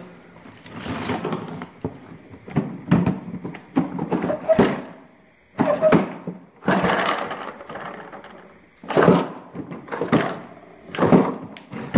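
Rummaging through a fishing tackle box: rustling of plastic bags and paper, with irregular knocks and clatter as items are moved and its trays are pulled open.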